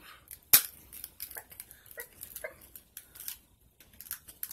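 King crab leg shell being cracked and pulled apart by hand: a series of sharp cracks and snaps, the loudest about half a second in.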